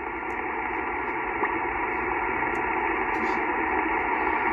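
Steady hiss of shortwave band noise coming through an HF transceiver's single-sideband receiver audio, cut off above about 3 kHz, with no voice coming through.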